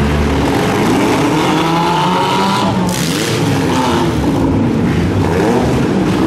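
Several four-cylinder demolition derby cars running and revving at once, their engine notes rising and falling over one another. A sudden harsher noise cuts in about three seconds in.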